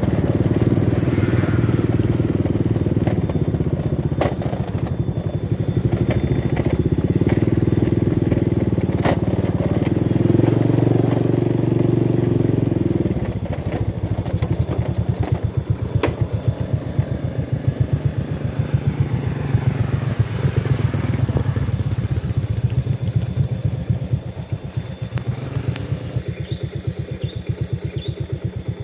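Motorcycle engine running under way, with road and wind noise on the microphone. About halfway through it drops to a quieter, evenly pulsing putter as the bike slows. A few sharp clicks over the top.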